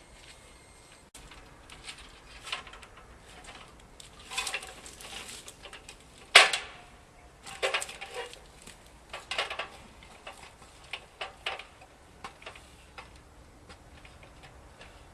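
Irregular knocks and clatters of steel tower gear being handled and shifted, with the sharpest knock about six seconds in.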